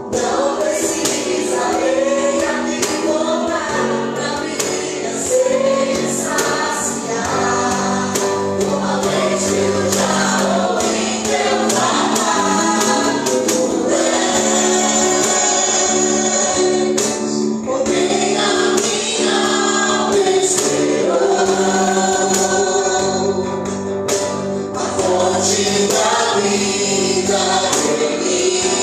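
Live church worship band playing a gospel song, with voices singing over sustained instrumental accompaniment.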